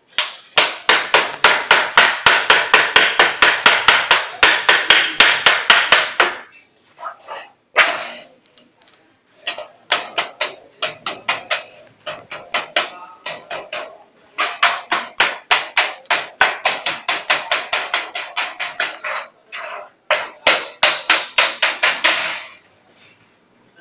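Wooden mallet beating the edge of a galvanized steel sheet over a steel rail, in quick, even runs of about four to five blows a second. Two long runs are separated by a spell of scattered single blows, and the blows stop shortly before the end.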